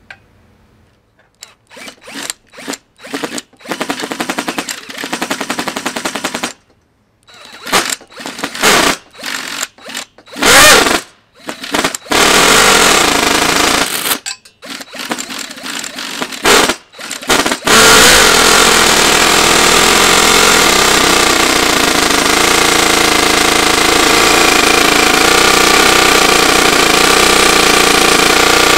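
Twin-rotor model Wankel rotary engine, built from two O.S. 49-PI II glow engines, being cranked by an electric drill. It fires in short bursts of rapid popping and stalls several times, then catches at about 18 seconds and runs steadily. It runs without a flywheel.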